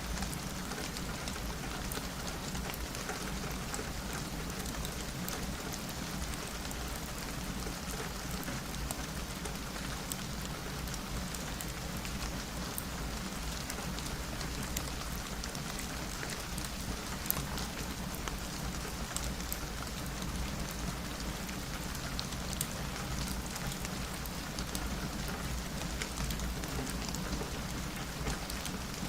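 Steady rain: an even hiss dotted with many small, sharp drop ticks, over a low steady rumble.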